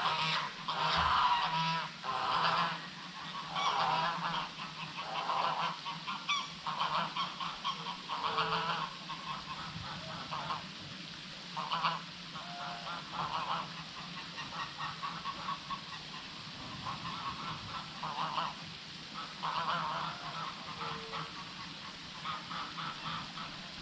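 Birds giving a long series of short, nasal, pitched calls, louder and more spaced in the first few seconds, then quicker and fainter, over a faint steady low hum.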